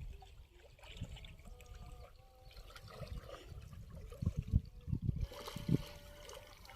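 Water trickling and dribbling, with several low thumps about two-thirds of the way through.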